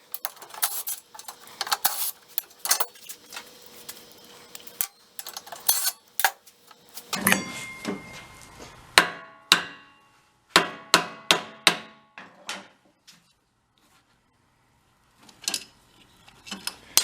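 Hand tools clinking and knocking against the metal of a small four-stroke engine: an irregular run of sharp taps and clanks, some ringing briefly, with a few seconds of quiet before the last clinks.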